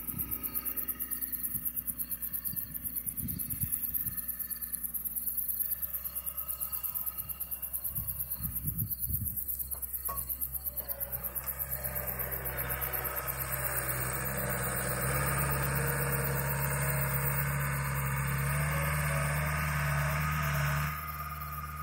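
Cat 906 compact wheel loader's diesel engine running as it carries a round bale, growing louder and steadier from about halfway and dropping off suddenly near the end.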